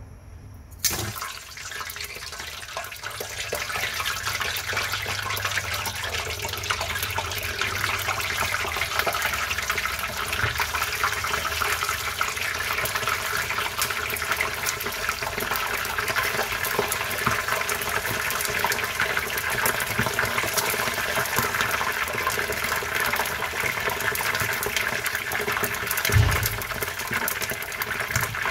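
Hot cooking oil sizzling as a whole pre-steamed pork hock is dropped in to fry: a sharp hit about a second in, then a dense, crackling sizzle that builds over a few seconds and holds steady. A low thump near the end.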